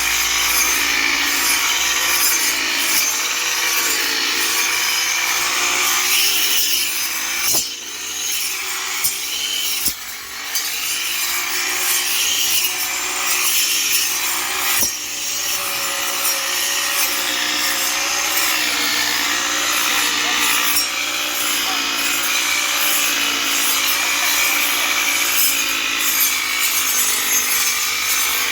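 Grass-cutting machine running and cutting grass: a steady engine drone with a harsh rasping noise over it, dipping briefly twice, about 8 and 10 seconds in.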